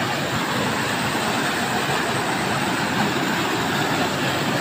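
Waterfall rushing steadily: an even, unbroken wash of water noise.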